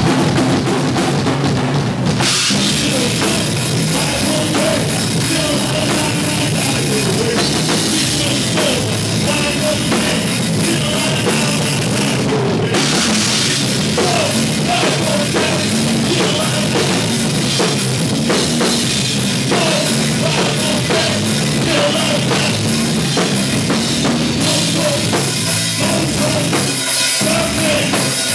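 Live rock band playing loud: a drum kit with bass drum and crashing cymbals, a distorted bass or guitar, and a vocalist singing or shouting into a microphone over the top.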